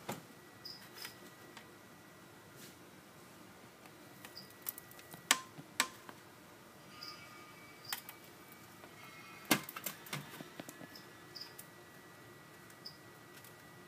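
Scattered sharp clicks and knocks of handling against a glass terrarium, the loudest about five and nine seconds in, over short high chirps that come every second or two, like crickets chirping.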